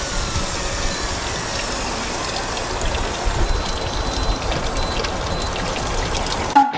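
Steady rushing wind and water noise on a fishing boat at sea, with heavy low rumble, cutting off suddenly near the end.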